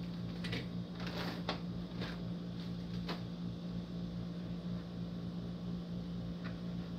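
Plastic packaging crinkling briefly a few times in the first three seconds as a half-face respirator mask is unwrapped, over a steady low machine hum.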